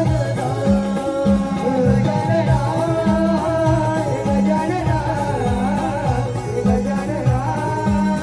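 Marathi shahiri devotional song to Ganesh: melody with singing over a steady, repeating drum beat.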